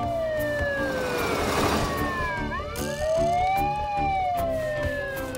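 A cartoon fire engine's siren wailing, its pitch slowly rising and falling, with one dip about halfway through. Background music with a steady pulse plays underneath.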